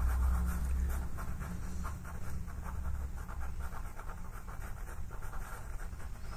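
Pastel pencil scratching on pastel paper in quick, repeated short strokes, shading in fur. A steady low hum lies underneath and fades after about three seconds.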